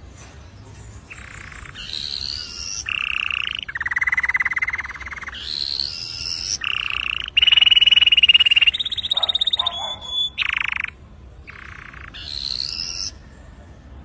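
Red factor canary singing a varied song of rapid trilled rolls and rising whistled notes, with the loudest, fastest trill in the middle.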